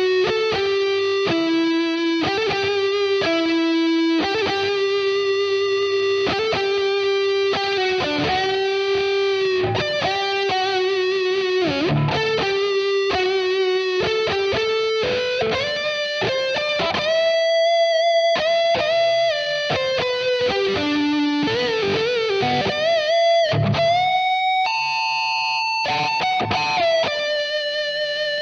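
Distorted electric guitar playing a single-note lead through a multi-effects pedal, with held notes, string bends and vibrato. The guitar is a Chibson Les Paul replica fitted with a bone nut.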